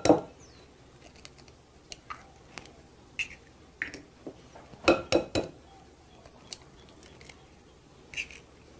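Eggs cracked against the rim of a glass mixing bowl: sharp knocks with a brief glassy ring at the very start and a cluster of about three knocks about five seconds in, with faint clicks of shell handling between.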